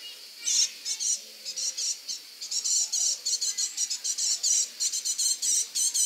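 European goldfinch singing: a fast run of short, high twittering notes that begins about half a second in, with a couple of brief breaks.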